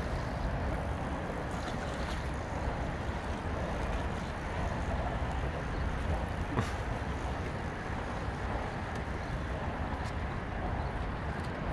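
Steady rumble and water wash of a sailboat under way, heard from its stern.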